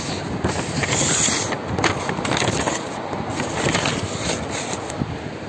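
Rustling and scraping handling noise with several sharp clicks, from the recording camera being moved and rubbed close to its microphone.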